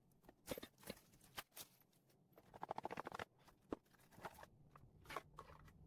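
Faint handling noises from unpacking a small item: scattered light clicks, with a short run of rapid ticking about three seconds in.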